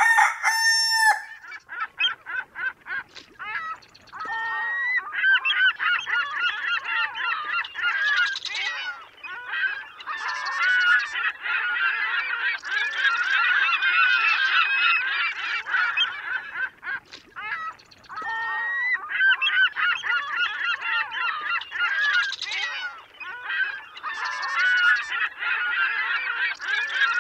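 A flock of birds calling, many short calls overlapping in a dense chorus. It thins out briefly a few seconds in and again after about eighteen seconds.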